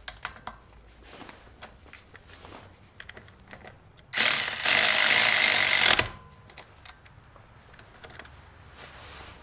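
Husky 3/8-inch 12-volt cordless ratchet: a few light clicks as it is handled and fitted, then the motor runs in one loud burst of a little under two seconds, a bit after the four-second mark, before stopping suddenly.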